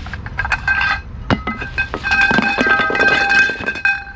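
Metal leg tubes of a roll-up camp table clinking against each other as they are handled and laid down: a few sharp clicks at first, then about two seconds of rapid clinking with a metallic ring.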